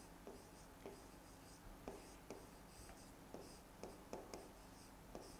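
Faint ticks and scratches of a stylus writing on an interactive display screen, in short, irregular strokes about twice a second as a word is written out.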